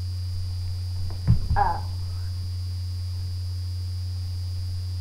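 A steady low electrical hum, with a thump about a second in as a child drops down to sit on the floor mat, followed right after by a short vocal sound.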